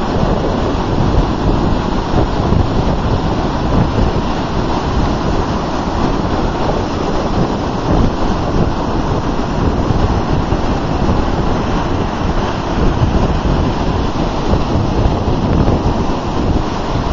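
Ocean surf breaking and washing up the beach close by: a loud, steady rushing with a deep rumble, rising and falling slightly as the waves come in.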